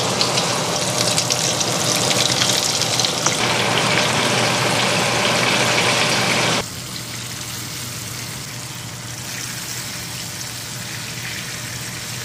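Flour-coated chicken pieces deep-frying in hot oil in a cast-iron pan: a dense, crackling sizzle. A little past halfway it drops suddenly to a quieter, steady sizzle.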